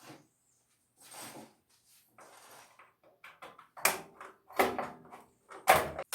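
Window screen and frame being handled: a couple of soft scraping sounds, then three louder clattering knocks in the second half.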